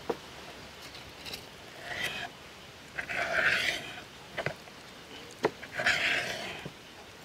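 Kitchen knife cutting tuna steaks on a cutting board: about five sharp knocks as the blade strikes the board, and three short rasping stretches as it slices through the fish's skin.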